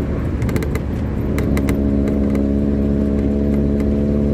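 A vehicle engine running at a steady speed: a low rumble, joined about a second and a half in by a steady multi-tone hum.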